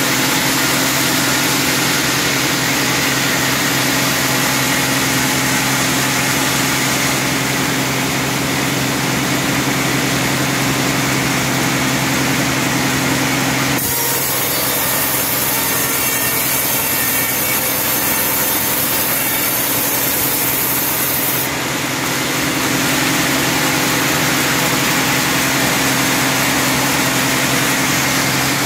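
Sawmill band saw cutting lengthwise through a teak log on the carriage: a loud, steady sawing noise over the machine's constant hum. The sound changes abruptly about 14 seconds in and again a little after 21 seconds.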